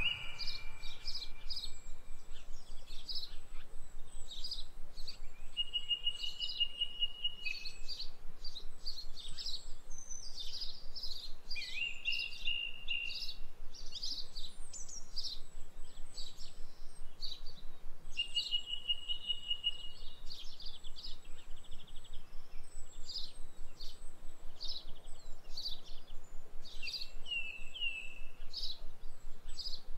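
Small birds chirping and twittering without a break, with a short high trill recurring every few seconds.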